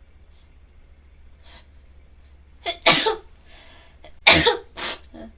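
A woman sneezing several times in quick succession, starting a little under three seconds in, with sharp breaths between the sneezes.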